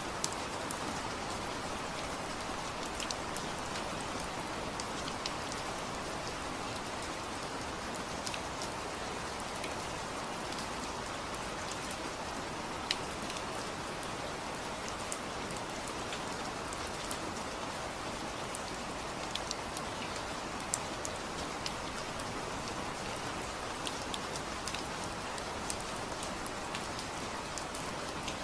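Steady rain falling, a continuous hiss with many separate drops ticking sharply on a surface throughout.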